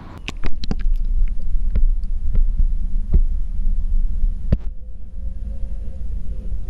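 Knocks and a low rumble from a GoPro being handled as it goes into the water. About four and a half seconds in, the sound suddenly turns muffled, like sound heard underwater, and a faint wavering hum comes through.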